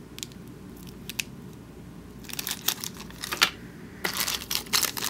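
Small plastic zip bags holding pewter miniatures crinkling and rustling as they are handled, with a few light clicks at first. The handling gets busier from about halfway through.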